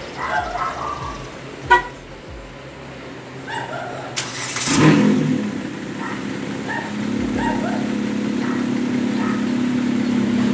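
Ford Fiesta Mk7 with a straight-piped exhaust being started: a brief crank about four seconds in, the engine catching with a loud burst, then settling into a steady idle. A single sharp click comes a little under two seconds in.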